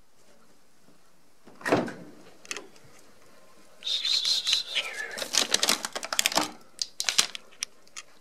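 Refrigerator door pulled open with a thud about two seconds in, then plastic food tubs and bags handled in the freezer compartment: a run of clattering and rustling with a short squeak of plastic sliding on the shelf.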